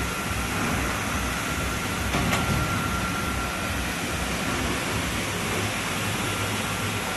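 Crate washing machine running: a steady hiss over a low rumbling hum, with a faint steady whine.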